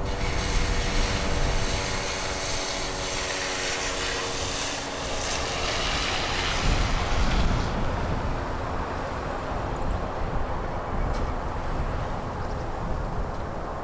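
Federal Signal STH-10 siren winding down, its tone fading out over about six or seven seconds while the rotor's whir and wind rumble carry on.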